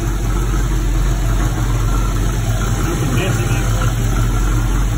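Ford 5.0-litre (302) V8 of a 1987 Mustang GT idling steadily.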